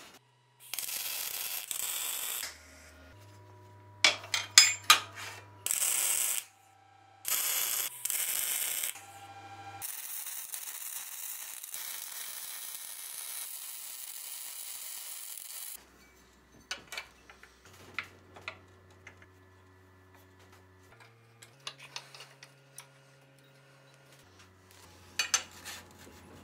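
MIG welding on a steel tractor frame: several short bursts of welding hiss and crackle, then one steady weld run of about six seconds. Afterwards come scattered clicks and knocks of metal parts and clamps being handled.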